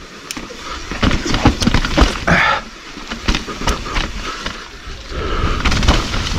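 Mountain bike rattling down a slick, muddy trail: a dense run of sharp knocks and clatter from the bike over rough ground, with a steady low rumble underneath.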